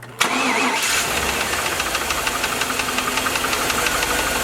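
Suburban engine cranking briefly on the starter and catching, then idling with a fast, regular knock. The knock is a rod bearing with too much clearance on the number 5 cylinder.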